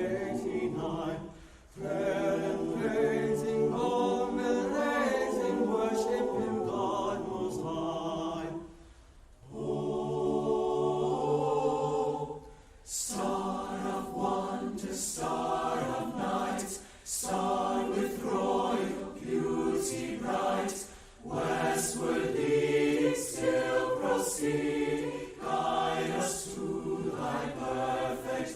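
Student choir singing in harmony, in long held phrases separated by short breath pauses.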